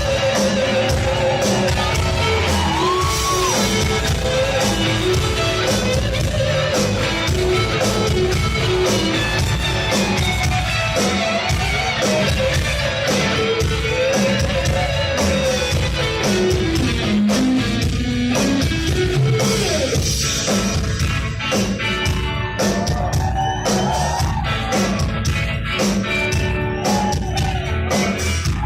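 Live rock band playing, a lead singer's melody over drums and guitars, with some shouted vocals.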